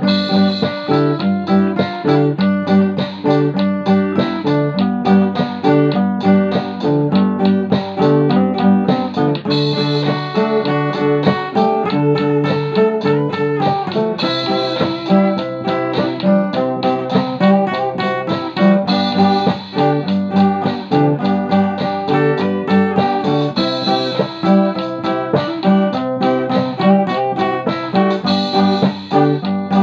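Guitar music: plucked strings playing a continuous run of quickly picked notes.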